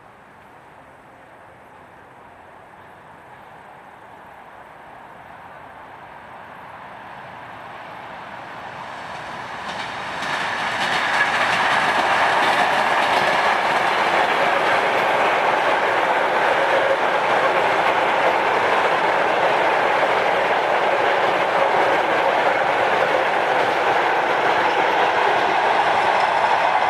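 A train approaching, growing steadily louder for about ten seconds, then running past close by with a loud, steady rush of wheels on the rails.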